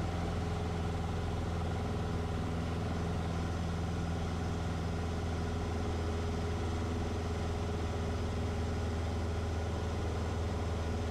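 Cessna 150's Continental O-200 four-cylinder engine droning steadily in flight, with propeller and airflow noise.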